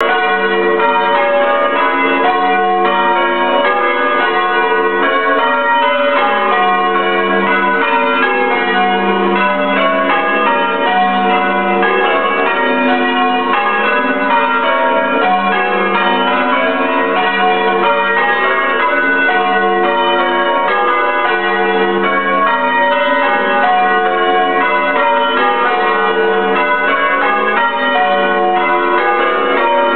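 Ring of five church bells, a 16 cwt ring, rung in plain hunt: the bells strike one after another in a steady, even rhythm, their notes overlapping as the changes unfold.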